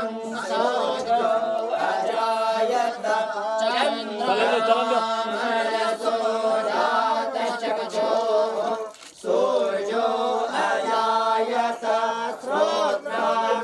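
A group of voices chanting together in a Hindu devotional chant, with a steady low hum underneath and a brief pause about nine seconds in.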